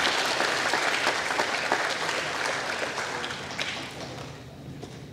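Audience applause: many people clapping together, fading out about four seconds in.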